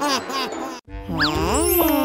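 Cartoon sound effects and music. A quick repeated giggle-like sound trails off, and after a brief break a gliding, wavering cartoon tone starts about a second in.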